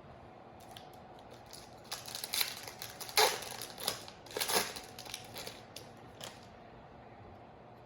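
Foil trading-card pack wrapper crinkling as it is opened, in a cluster of crackly rustles over about four seconds, loudest about three seconds in.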